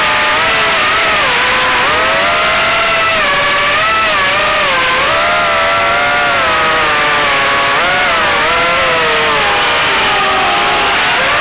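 HX115 FPV quadcopter's brushless motors and propellers whining, the pitch sliding up and down constantly as the throttle changes.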